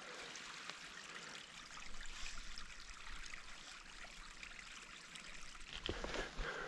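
A small stream running steadily, an even rush of water. Footsteps on the trail begin near the end.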